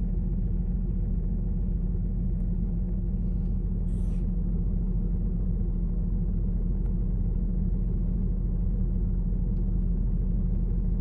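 2006 Infiniti M35's 3.5-litre V6 idling with a steady low drone at about 800 RPM. The car is shaking at idle from a multiple-cylinder misfire (code P0300), which the owner hopes is a spark plug or coil fault.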